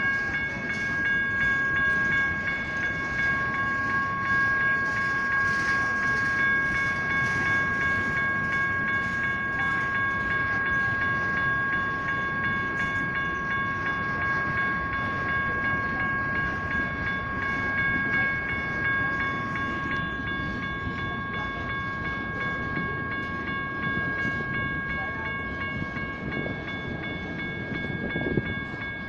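General Signals Type 1 electronic crossing bells ringing steadily as freight cars rumble and clatter past over the crossing.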